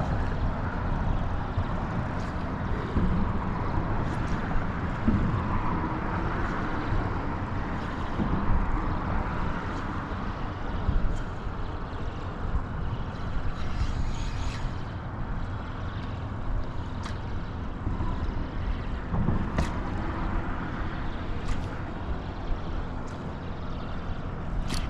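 Steady low rumble of outdoor noise with wind on the microphone, and a few faint ticks scattered through it.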